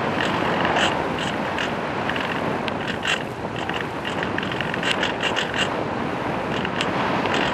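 Wind rushing over the onboard microphone of an EasyGlider RC motor glider as it glides, with no motor tone. Short crackles come and go throughout.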